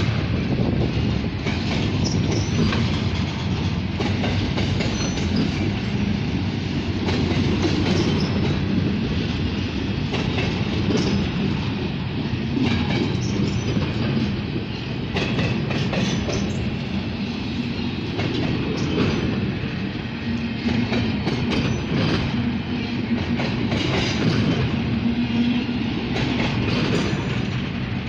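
Double-stack intermodal train's loaded well cars rolling past at trackside: a steady rumble of steel wheels on rail, with clicks and clacks as the wheels cross rail joints.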